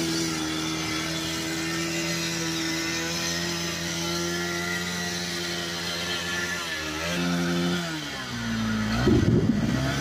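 Motorcycle engine held at a steady high rev while standing in floodwater, over the hiss of heavy rain. About eight seconds in the revs drop, followed by a short, loud, rough burst near the end.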